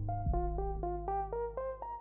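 Background music: a keyboard melody of quick, evenly spaced notes, about six a second, over a low held bass.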